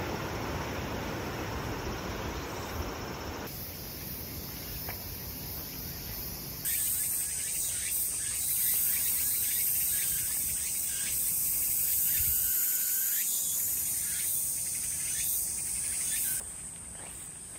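Steady high-pitched shrill of a summer insect chorus in woodland. It turns much louder about a third of the way in and drops off sharply shortly before the end, over a low rumble in the first part.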